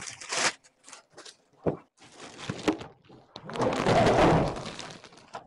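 Plastic packaging bag crinkling and rustling as a heavy packed unit is handled and lifted out of a cardboard box, with short knocks and scrapes. The longest and loudest rustle starts about three and a half seconds in and lasts over a second.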